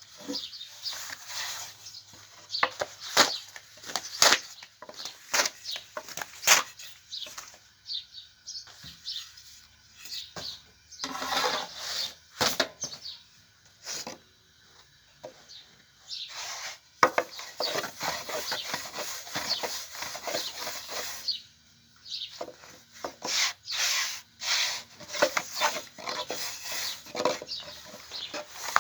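Food-preparation handling sounds: irregular sharp knocks of utensils on wood, broken by stretches of scraping and rubbing.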